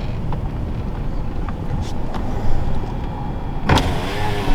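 Car being driven, a steady low rumble as heard inside the cabin, with a few faint clicks. A sharp click comes near the end, after which a brighter hiss comes in.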